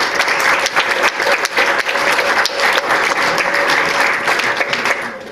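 Audience applauding, a steady patter of many hands clapping that stops shortly before the end.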